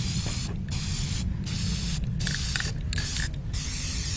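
Aerosol can of chalkboard spray paint hissing in short bursts, about six in four seconds, as bottles are sprayed black. A steady low rumble runs underneath.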